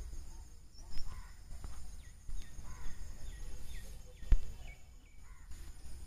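Scattered short bird chirps over outdoor background noise, with a few sharp knocks, the loudest about four seconds in.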